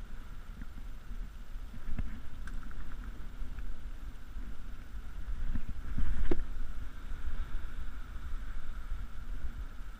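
Wind rumbling on the microphone, with a few sharp knocks, the loudest about six seconds in.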